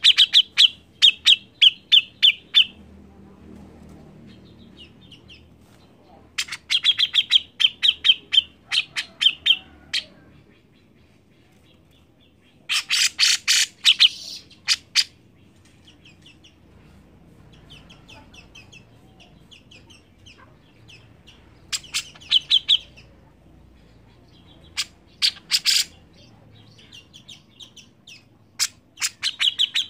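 A grey-cheeked bulbul (cucak jenggot) calling in six bursts of rapid, sharp chattering notes, a few seconds apart.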